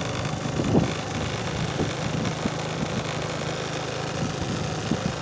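A small engine running steadily at low revs, a low even hum, with a few soft knocks over it, the loudest about a second in.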